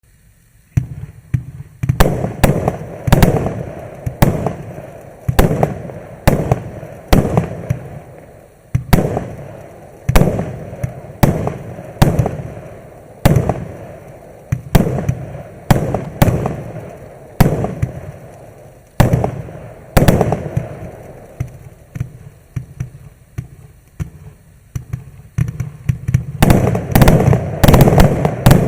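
MAXSEM "Shatter" MC126 106-shot firework cake firing: sharp shots and bursts come roughly one to two a second from about a second in, each trailing off. Near the end the shots come in rapid succession.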